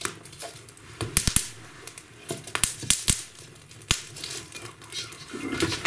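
Wood fire crackling in a fireplace: irregular sharp pops and snaps from burning kindling, in small clusters.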